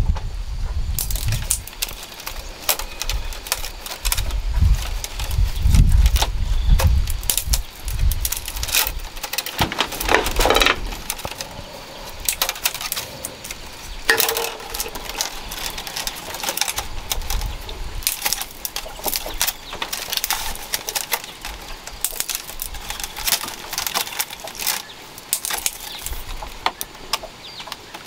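Thin split bamboo strips clicking and rustling as they are threaded and pulled through the spokes of a woven bamboo hat, in many sharp irregular ticks. A low rumble runs under the first several seconds, and a short wavering call-like sound comes about ten seconds in.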